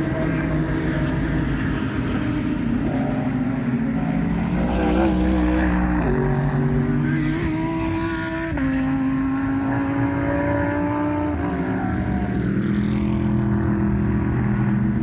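GT3 race car engines running hard at speed, several at once, their pitch stepping sharply with gear changes a few times.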